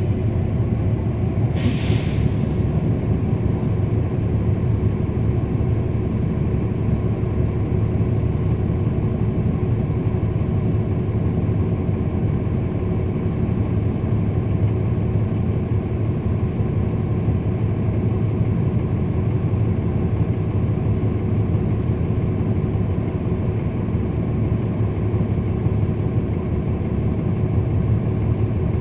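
2010 NABI 40-SFW transit bus's Cummins ISL9 diesel engine running steadily, with a short sharp burst of air hiss about two seconds in.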